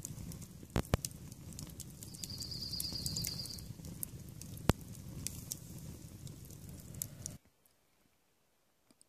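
Wood campfire crackling and popping over the low rush of the flames, with a loud sharp pop about five seconds in. A brief high-pitched trill sounds a little after two seconds, and the sound cuts off suddenly near the end.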